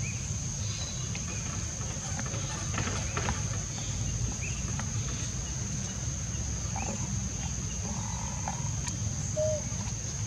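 Outdoor ambience: a steady high-pitched drone over a low rumble, with a few short, faint chirps and squeaks scattered through it and one brief lower call near the end.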